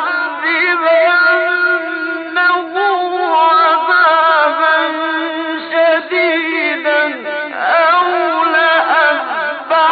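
A man's voice reciting the Quran in a melodic chant, holding long notes with wavering ornaments, unaccompanied. A phrase ends on a falling glide about seven and a half seconds in and a new phrase begins straight after.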